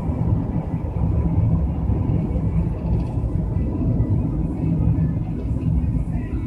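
Steady low rumble of a coach bus's engine and tyres heard from inside the cabin while cruising on the highway.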